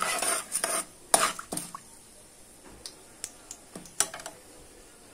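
Steel spoon stirring and scraping through tempering spices and dal frying in hot oil in a kadai, with a light sizzle. The scraping stops after about a second and a half, leaving a few scattered clicks of the spoon against the pan.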